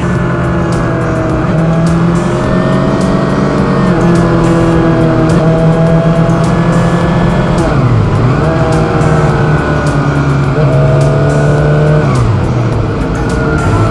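2007 Suzuki GSX-R600's inline-four engine heard from onboard, running at moderate revs on a slow lap. Its pitch dips and climbs back twice, past the middle and again near the end, as the revs change.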